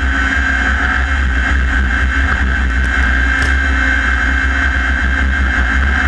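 Off-road race buggy running at speed over desert dirt, heard from onboard: a steady engine drone with a heavy low rumble underneath.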